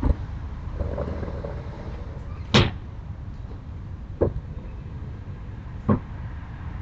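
Three short knocks about a second and a half apart, the first the sharpest and loudest, over a steady low rumble.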